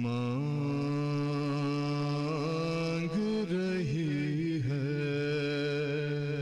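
A man singing a souz, an unaccompanied Urdu lament, in a long drawn-out phrase. He holds a steady note, weaves through a short wavering turn about halfway, then holds a note again.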